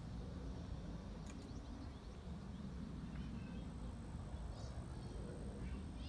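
Wind rumbling on the phone's microphone, with a few short bird chirps scattered through. A thin, steady high tone comes in a little past halfway.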